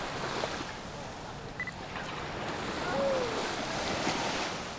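Beach ambience: surf washing on the shore with wind on the microphone, and faint voices of people on the beach.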